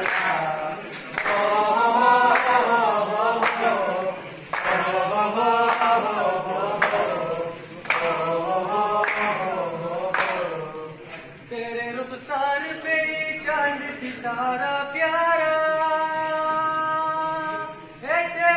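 A group of schoolboys singing a Pakistani patriotic song (milli naghma) together in chorus, with a sharp beat about once a second for the first ten seconds or so. After that the beat stops and they hold long, steady notes.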